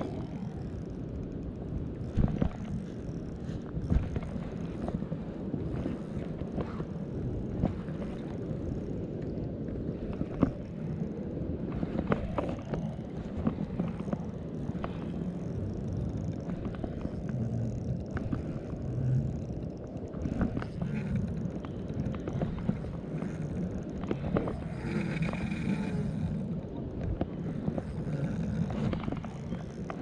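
Steady low rushing of wind and river water on a body-worn microphone, with scattered sharp clicks and knocks from handling a spinning rod and reel.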